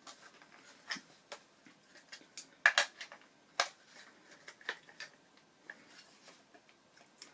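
Scattered small metallic clicks and taps from hand tools and skate parts being handled as a wheel is taken off a Freeline skate, with two louder clacks a little under a second apart near the middle.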